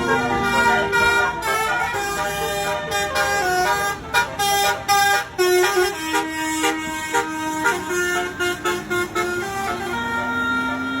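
Basuri multi-tone 'telolet' bus horn playing a tune: several horn tones sounding together and stepping from note to note, held notes at first, then a quick run of short toots in the middle.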